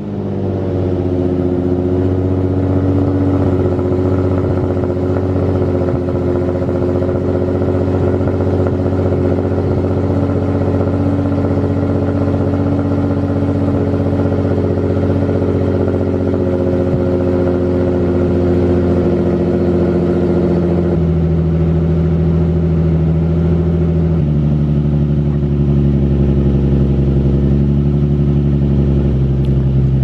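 Nissan 350Z's 3.5-litre V6 idling steadily, its note shifting in steps about 21 and 24 seconds in.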